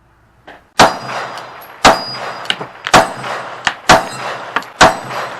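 Five 9mm pistol shots from a Glock 19, about a second apart, each hitting hanging steel plates that ring with a metallic clang.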